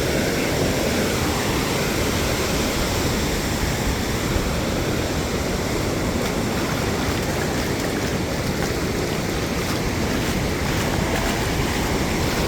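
Ocean surf rolling in and breaking steadily, with wind on the microphone.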